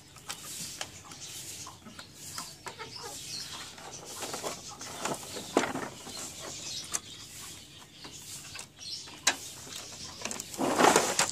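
Scattered light clicks, taps and rustles of plastic and metal printer parts being handled in an open Epson T60 inkjet printer's carriage mechanism, with a louder rustle near the end.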